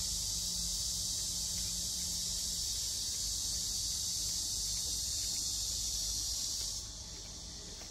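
Steady, high-pitched buzzing of an insect chorus that cuts off abruptly near the end.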